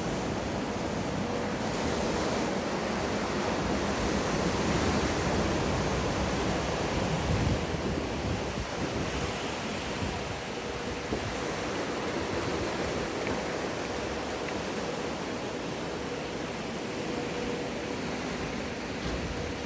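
Waves in a surf wave pool breaking and washing through, a steady rushing that swells louder a few seconds in and then eases, with a faint steady hum underneath.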